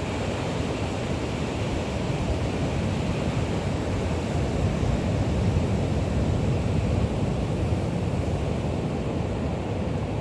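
Steady rushing of wind buffeting the microphone, mixed with the wash of ocean surf.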